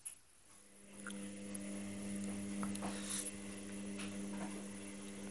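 Fridge-freezer compressor starting up about half a second in, then running with a steady low hum, with a few faint taps and rustles over it.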